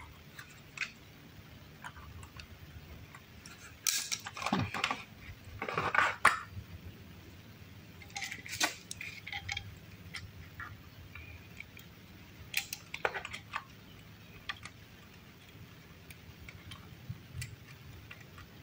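Intermittent metallic clinks and clanks of a tool and bolt being worked at a bicycle's front mudguard mount while a headlight is fitted. They come in small clusters with quiet pauses between.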